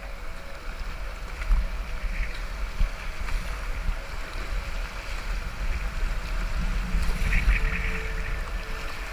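River water rushing and splashing around a kayak running a choppy riffle, with a few sharper splashes from the paddle, and wind rumbling on the bow-mounted camera's microphone.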